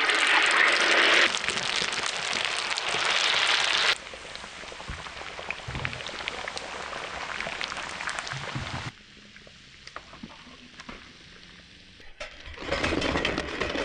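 Batter-coated sardine bread sizzling and crackling in hot cooking oil in a frying pan, loudest as a slice goes in. The sizzle drops to a quieter crackle about four seconds in and fades further about nine seconds in.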